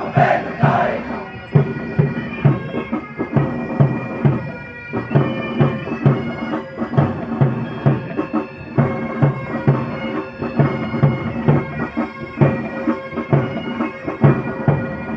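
Military pipe band playing: bagpipes sounding steady held notes over a bass drum beating about twice a second.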